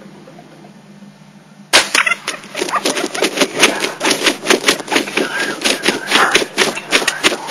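Wild turkeys beating their wings and thrashing in dry grass: a sudden loud start about two seconds in, then a rapid run of sharp flapping beats that keeps going.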